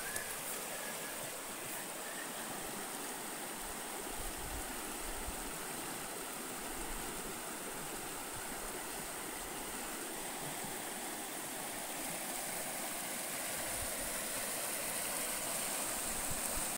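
Swollen, fast-flowing muddy river rushing past the bank in flood: a steady rush of water.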